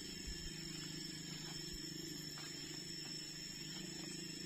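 Steady buzzing of tropical insects with a constant high ringing tone, over a low steady hum. Faint footfalls and swishes of someone walking through tall undergrowth come a few times.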